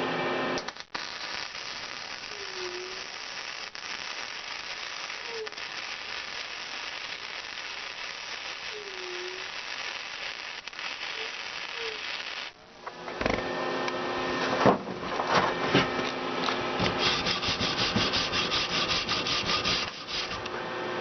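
MIG welding arc of a Lincoln Power MIG 180 Dual laying a bead in a zigzag weave, a steady hissing crackle. It stops briefly about twelve seconds in, then resumes with a coarser, spattery crackle.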